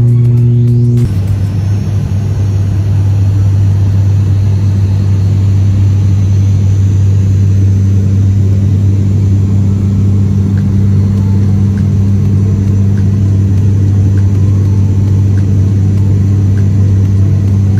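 Turboprop airliner's engines and propellers heard from inside the cabin: a loud, steady low drone at an even pitch. About a second in, the tone shifts slightly lower and then holds steady.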